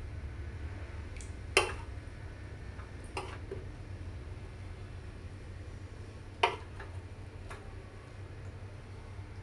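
A metal utensil clinks against a cooking pan as eggplants are lifted out onto a plate. There are two sharp clinks, about a second and a half in and again about six and a half seconds in, with a few lighter taps between them, over a steady low hum.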